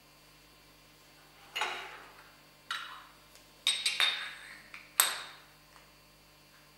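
Metal letterpress blocks clinking as they are set down and pushed together on a metal surface: about five sharp metallic clinks with a short ring, the loudest near the end.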